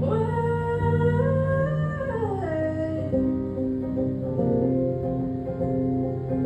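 A woman's voice holding a long sung note over acoustic guitar; the note bends upward, then slides down about two and a half seconds in, and the guitar plays on with steady held notes.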